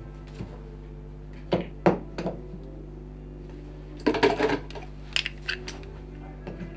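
Metal hand tools clinking and knocking on a wooden workbench, with handling of a cast-iron bench vise as a wooden carving is clamped. There are a few sharp knocks early, a quick cluster of clatter a little past the middle, then a few more clicks, all over a steady low hum.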